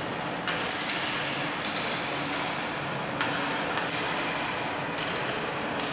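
Sharp clacks of hockey sticks striking the ball and the ice in a boot hockey game, about nine at uneven intervals, over a steady low hum.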